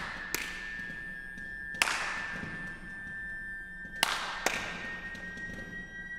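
Contemporary chamber-ensemble music: four sharp, irregularly spaced hits, each trailing off in a hissing wash, over a high held tone.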